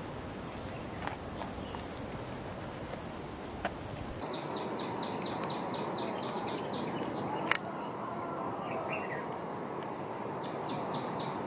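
Steady high-pitched chorus of insects in woodland. After about four seconds a run of rapid ticks comes in, and a single sharp click, the loudest sound, falls about two-thirds of the way through.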